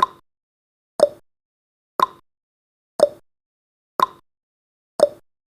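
Countdown timer's clock tick-tock sound effect, six short ticks evenly one a second, alternating a higher and a lower tick, counting down the last seconds before the alarm.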